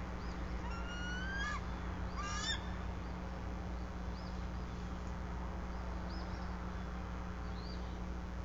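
Bald eagle calling: two short, rising, clear calls about a second apart, near the start. A few faint high chirps follow, over a steady low hum.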